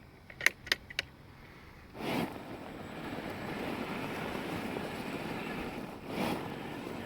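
A few sharp clicks, then a small six-wheel robot rover starts driving about two seconds in: a steady rushing rumble of its electric drive motors and wheels rolling over the ground, briefly easing and surging again near the end.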